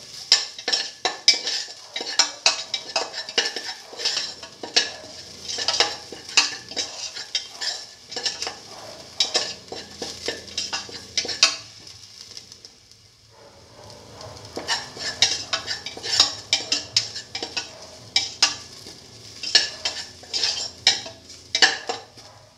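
A spatula scrapes and clacks against a stainless steel pan as sliced shallots, ginger and garlic are stirred and sautéed in oil, with a light sizzle underneath. The stirring stops for a couple of seconds a little past halfway, then starts again.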